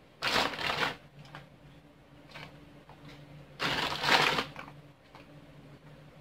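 Clear plastic zip-lock bag crinkling twice as hands dig into it, each rustle lasting under a second.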